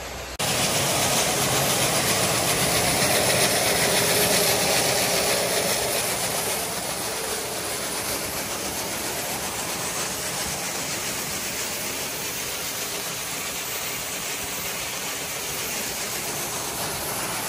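Two grain augers running as they move soybeans: a steady mechanical rushing noise, a little louder for the first several seconds.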